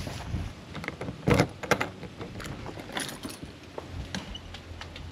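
Keys jangling, with a run of sharp clicks and knocks as a house door is unlocked and opened. The loudest is a thump about a second and a half in.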